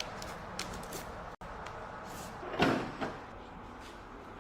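One heavy clunk about two and a half seconds in, followed by a lighter knock, over a steady background hiss.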